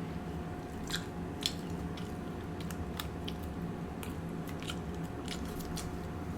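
Close-miked chewing: scattered short, wet mouth clicks and crunches as food is eaten, over a faint steady hum.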